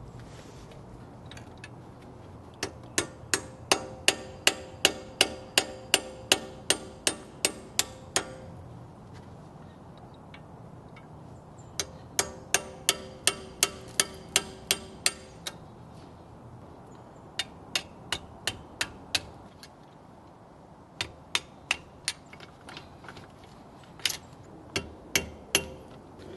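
Hammer tapping a pin punch to drive out the brake pad retaining pins on a Mercedes W220 S500 brake caliper. It comes in several runs of quick metallic taps, about three a second, each with a short ringing note, with brief pauses between the runs.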